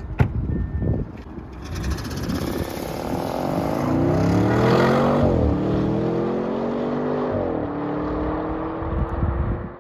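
Audi RS6 C8's twin-turbo V8 accelerating hard away, its note climbing and dropping twice as it shifts up, about five and seven and a half seconds in. A sharp thump comes right at the start.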